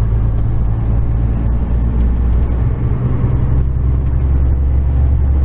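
Heavy truck's diesel engine running as it drives along, a loud, low steady drone; its note shifts about three seconds in.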